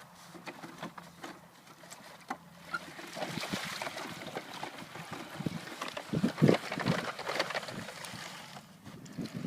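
Water splashing and churning as a small off-road vehicle drives through a deep puddle. It starts about three seconds in, with irregular heavier splashes and knocks midway, and eases off near the end.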